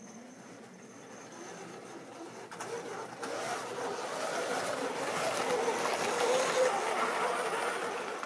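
OO-gauge model train running on the layout: the locomotive's small electric motor whirring and the wheels running over the track, growing steadily louder from about two seconds in.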